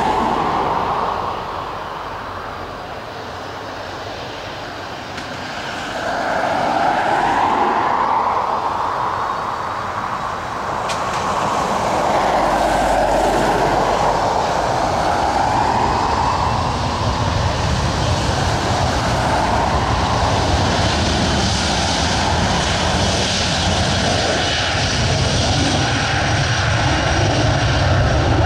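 Boeing 737-300's CFM56-3 turbofan engines: a wavering jet whine as the airliner taxis onto the runway. From about 12 seconds in a deep rumble builds beneath a slowly rising whine as thrust comes up for the take-off roll, loudest near the end.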